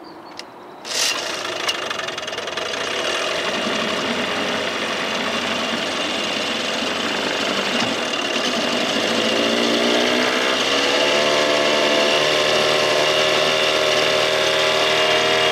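1987 Johnson 6 hp two-stroke outboard running on a newly swapped carburetor, fitted to cure a bog. The engine comes in suddenly about a second in, speeds up with a rising pitch between roughly nine and eleven seconds, then holds a steady, higher-pitched run toward full throttle.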